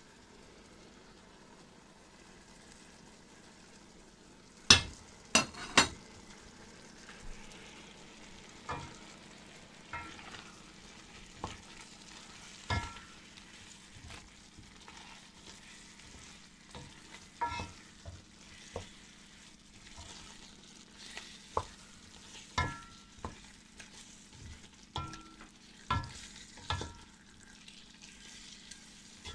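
A wooden spoon stirring chicken in a spiced tomato and yogurt sauce in a pan, knocking against the pan at irregular intervals over a faint sizzle. Three sharp, louder knocks come about five seconds in.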